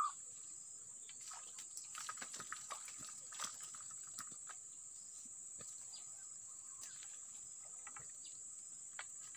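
Steady, high-pitched insect chirring, with scattered small clicks and a sharp knock at the very start.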